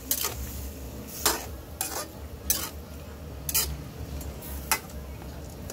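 A utensil stirring pork adobo in a metal pan, scraping and knocking against the pan about six times at uneven intervals.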